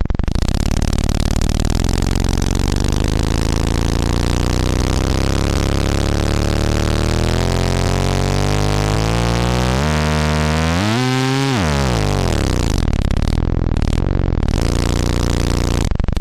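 A low sine-wave drone driven hard through the Erica Synths / Gamechanger Audio Plasma Drive, a plasma-tube distortion module, gives a buzzing, overtone-rich tone. A resonant analog low-pass filter is swept slowly upward across it, and about ten to twelve seconds in the tone bends sharply down and back up.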